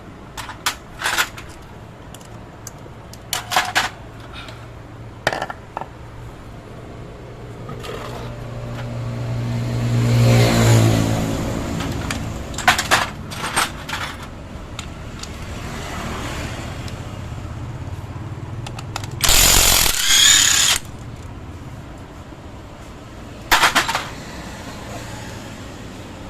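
Motorcycle workshop sounds during an engine overhaul: sharp metallic knocks and clinks of tools on metal several times, a humming motor sound that swells and fades around ten seconds in, and a loud hiss of about a second and a half near twenty seconds in.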